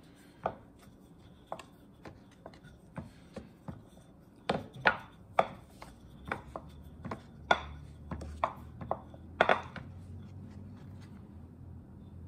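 Wooden rolling pin rolling out a small piece of clay on a wooden board, with a series of sharp, irregular knocks as the pin comes down on the board.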